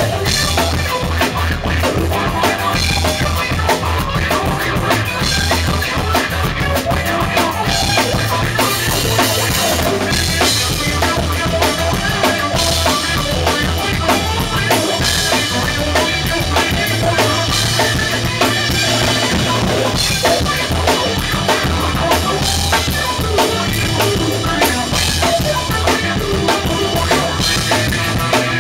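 Loud drum kit playing a steady rock beat on kick drum, snare and cymbals, with a guitar playing along as a live band jam.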